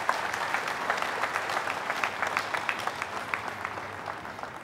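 Congregation applauding: a dense patter of many hands clapping that thins out and fades near the end.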